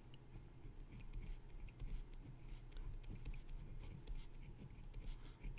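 Pen writing on paper: faint, irregular scratching and tapping strokes as letters are written.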